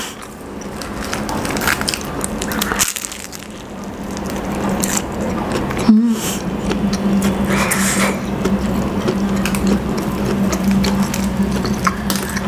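Flaky baked bread crust crackling as it is torn apart by hand, with close-up chewing of the ham-and-cheese-filled bread.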